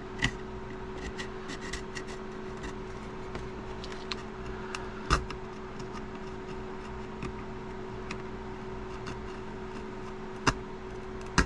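Small hand tool scraping and clicking against a phone's frame while clearing out old adhesive: scattered light ticks and a few sharper clicks, over a steady low hum.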